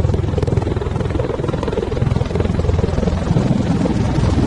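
V-22 Osprey tiltrotor flying with its nacelles tilted up, its two three-bladed proprotors driven by turboshaft engines. It makes a loud, steady, low throb of rapid rotor beat.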